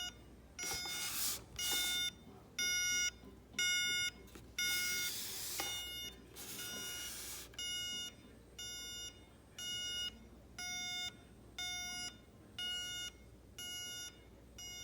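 Vintage electronic alarm clock's alarm going off: a buzzy beep repeating about once a second. Brief rustling noise comes in twice during the first half.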